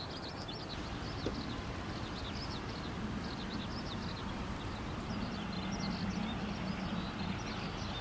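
Outdoor ambience: small birds chirping again and again, high and quick, over a steady background hiss, with a faint low hum in the middle seconds.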